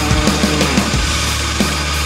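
Loud background rock music with a steady driving beat.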